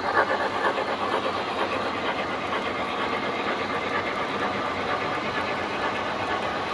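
Model freight train rolling along the layout's track: the wheels of a long string of refrigerator cars make a rhythmic clatter that eases in the first second into a steady rolling rattle.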